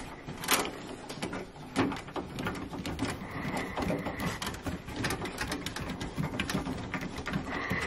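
Long screwdriver undoing the securing screw that holds the hydroblock of a Worcester Greenstar 25i combi boiler: irregular clicks and scraping of the blade in the screw head as it turns, with a couple of sharper clicks early on and a thin high squeak around the middle and again near the end.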